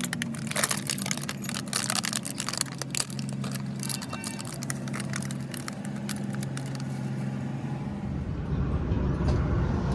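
Workshop machinery humming steadily with many sharp clicks and taps of metal, then from about eight seconds a low engine rumble comes in and grows louder.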